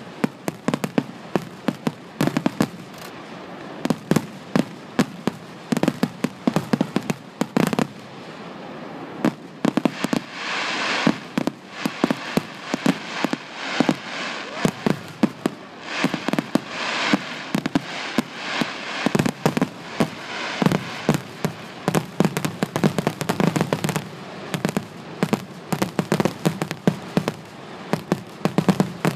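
Aerial fireworks display in its finale: shells bursting in rapid, irregular bangs, often several a second, with stretches of crackle around the middle.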